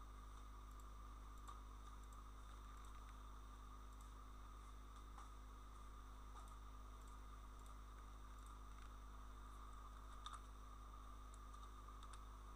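Faint computer mouse clicks, a scattering of short ticks with the most distinct one about ten seconds in, over a steady electrical hum and hiss from the recording microphone.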